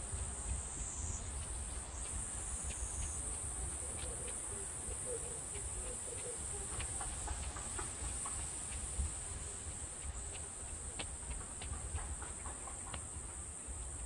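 Cicadas buzzing in chorus, a steady high-pitched drone, with short high notes scattered over it and a low rumble underneath.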